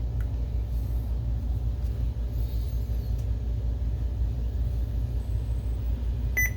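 A steady low hum runs throughout. About six seconds in, a single short electronic beep sounds, typical of a projector's power button being pressed before it starts up.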